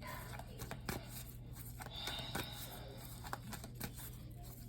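Tarot cards being handled, with soft scattered clicks and rustles of card on card over a low steady hum.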